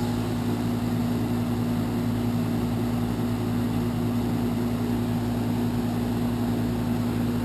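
Twelve-year-old outdoor heat pump unit running, a steady loud hum with a strong low droning tone. It is very loud in operation.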